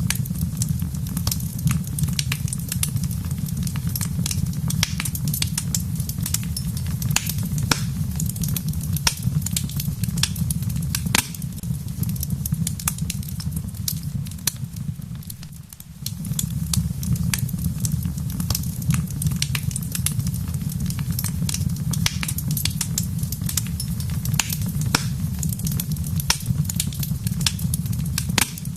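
Wood fire crackling in a fireplace, with frequent sharp pops and snaps over a steady low rumble, and rain pattering. The low rumble fades a little past halfway through and comes back suddenly.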